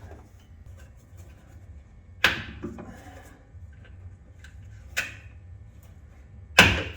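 Three sharp knocks, the last one the loudest, over a low steady hum.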